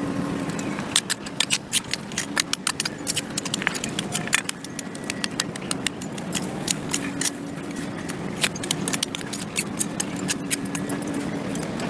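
Hand tool scraping and chopping at packed dirt and grass on a concrete sidewalk: rapid, irregular sharp scrapes and clicks, several a second, over a steady low hum.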